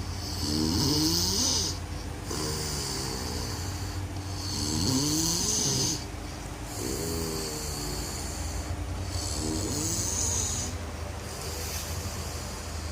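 Snoring in a steady rhythm, one breath about every two seconds, each with a hissing rasp and a gliding pitched snore, over a low steady hum.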